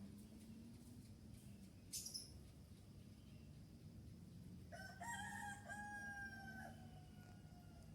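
Faint bird recording: a single short, sharp high chirp about two seconds in, then a rooster crowing once for about two seconds, its call falling slightly in pitch.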